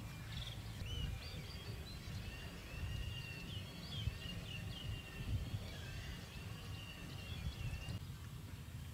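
Small birds chirping in a quick run of short high calls that stop about a second before the end, over a steady low rumble.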